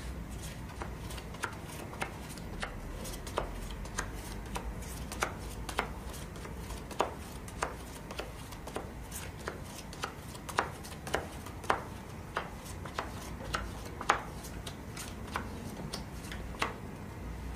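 Playing cards being turned over and laid down on a table, an irregular run of sharp light clicks over a steady low hum.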